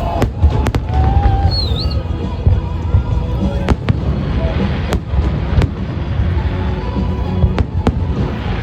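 Fireworks display: aerial shells bursting in an irregular string of sharp bangs, about ten in all, over a continuous low rumble of further explosions.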